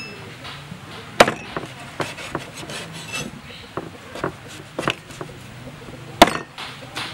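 Steel cleaver chopping through dried squid onto a wooden cutting board: a string of sharp knocks of the blade on the board, the two loudest about a second in and near the end, with lighter knocks between.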